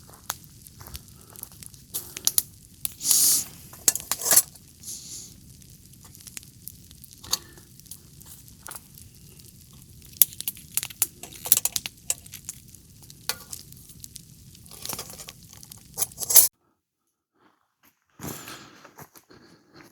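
Wood fire crackling in a brazier, with irregular sharp pops and snaps over a low steady rumble of burning. It stops abruptly about three-quarters of the way through, and fainter scattered noises follow.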